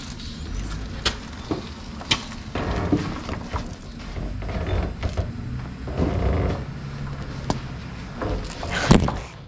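An old Pontiac Catalina being pushed by hand across a concrete garage floor: its tyres roll with a low rumble, with scattered clicks and knocks and shoes scuffing and scraping on the concrete.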